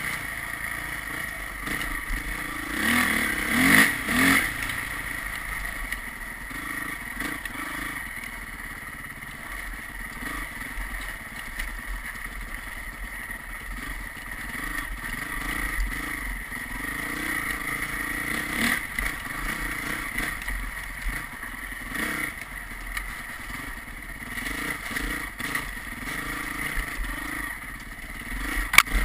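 Vehicle engine running steadily while travelling along a road, revving up briefly about three to four seconds in, with a few sharp clicks near the end.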